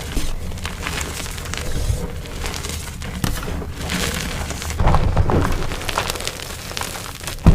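Blocks of dyed gym chalk being crushed and crumbled, giving a dense run of crisp crunches and crackles, with a heavier crunch about five seconds in.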